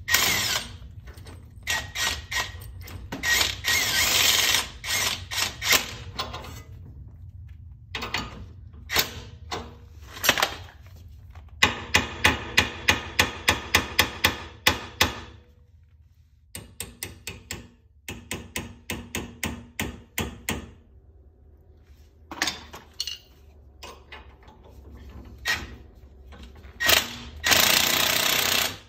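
Cordless impact wrench hammering on a lug nut threaded onto a wheel stud at a car's front hub, in several runs of rapid blows with short pauses between, the longest near the start and again near the end. Single metal knocks and clinks from the hub and parts come in the gaps.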